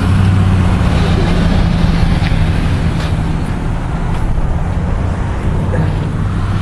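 A motor vehicle engine running close by over road traffic noise, with a steady low hum that eases slightly after the first few seconds.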